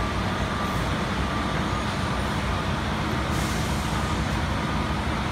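Steady low rumble of idling vehicle engines and city traffic, with a faint high tone coming and going over the first few seconds.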